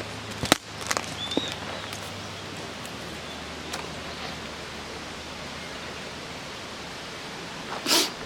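Wood campfire crackling: a steady hiss with sharp pops about half a second and a second in, and a louder crackle near the end.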